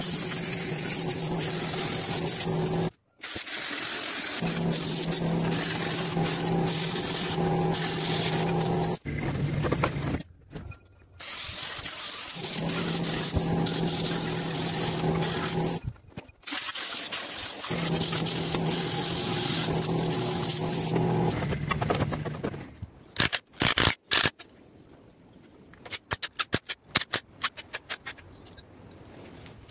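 Gas cutting torch hissing steadily as it cuts through the forklift's steel frame, heard in several stretches that stop abruptly. Near the end, a cordless impact wrench rattles in short bursts on the wheel nuts.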